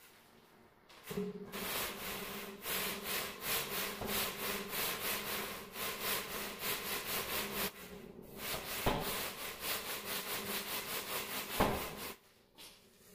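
A long straightedge sawn back and forth across a wet sand-and-cement mortar bed to screed it level, rasping at about four strokes a second in two long runs, with two sharp knocks during the second run.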